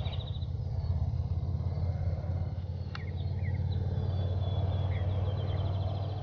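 Low steady rumble of an idling vehicle engine, which stops at the end. Over it a bird sings a rapid high trill at the start and again near the end, and there is a single sharp click about three seconds in.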